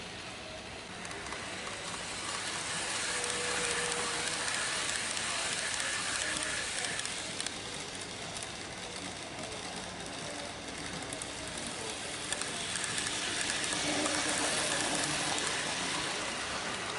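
Model trains running on the layout's track: a steady rolling rattle of small wheels on rail. It swells twice, about two seconds in and again about twelve seconds in, as trains pass close by.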